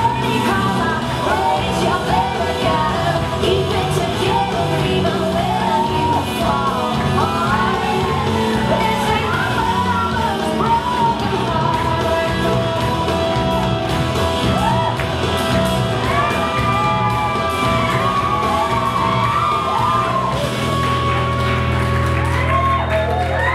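Recorded country-rock song with a woman singing, played loud over a hall's sound system.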